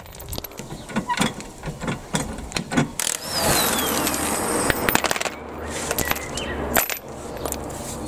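Cordless drill with a socket running for a couple of seconds near the middle, undoing a wheel bolt, among sharp metallic clinks of the bolt and tool being handled and set down.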